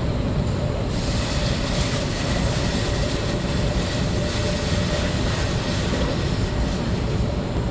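Brick-plant loading machinery running: a steady mechanical rumble and clatter with a faint steady whine, a brighter hiss coming in about a second in.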